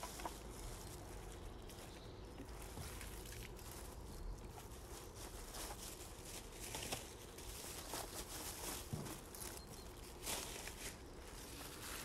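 Footsteps shuffling on dry leaf litter and the rustle and crinkle of a plastic carrier bag and plastic bottle as litter is picked up and bagged, heard as scattered light crackles; footsteps come close near the end.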